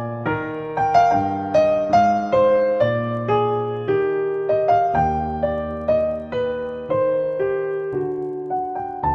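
Solo piano background music: a slow, gentle melody of single notes over held chords, about two notes a second.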